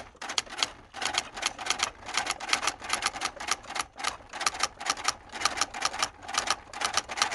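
Typewriter keys clacking in quick runs of several strokes a second, broken by short pauses about a second in, around four seconds in and near the end.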